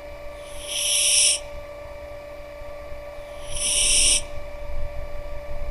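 Cat snoring in deep sleep: two long, hissing, whistly breaths about three seconds apart.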